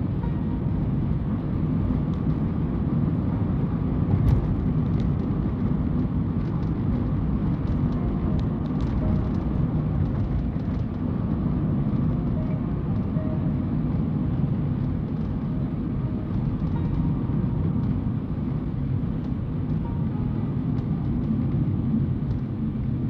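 Steady engine and tyre noise inside a car's cabin as it drives along a city avenue, with a brief sharp click about four seconds in.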